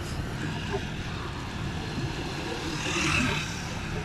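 Wind rushing over the microphone and tyre noise as a bicycle rolls along a concrete road, a steady low rumble and hiss that swells into a louder, brighter rush about three seconds in.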